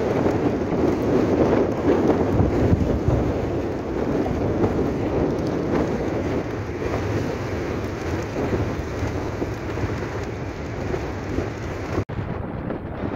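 Strong gusty storm wind buffeting the microphone: a loud, steady, deep rush with no let-up. The sound drops out for an instant near the end.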